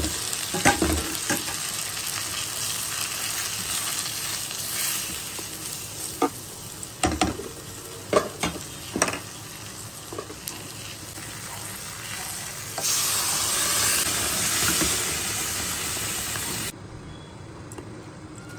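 Bottle gourd pieces frying in oil in a non-stick kadai, a steady sizzle while a spatula stirs them, with scattered knocks and scrapes of the spatula against the pan. The sizzle grows louder for a few seconds near the end, then cuts off suddenly.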